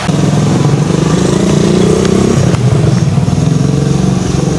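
Motorcycle engine running steadily, its pitch rising a little about halfway through and then settling back.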